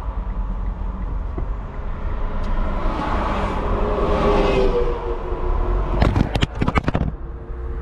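Inside a car: the engine runs with a steady low rumble while traffic goes by on the road outside. About six seconds in comes a quick clatter of knocks as the camera falls against the car's interior.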